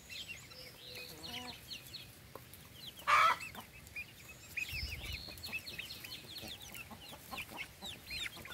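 Young chickens cheeping and chirping as they forage: a steady scatter of short, high cheeps, with one louder squawk about three seconds in.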